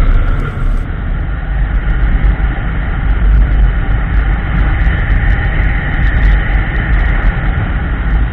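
Motorcycle on the move, recorded from a camera mounted on the bike: a steady low engine rumble mixed with heavy wind noise.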